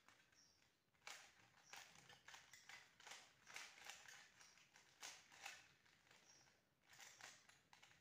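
Faint, irregular clicking and clacking of a 3x3 Rubik's cube's plastic layers being turned quickly by hand, many turns in a row.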